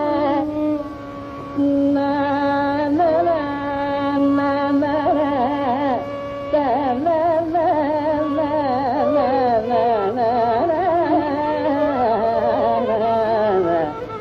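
Carnatic classical music: a slow raga alapana in Thodi, without percussion. It is a single melodic line of long held notes, bent and shaken with wide oscillating gamakas, over a low steady hum.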